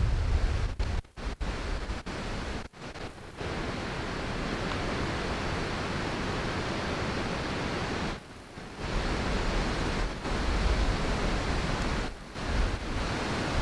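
Steady rushing hiss with no distinct events, dropping out briefly several times near the start and a few times later on.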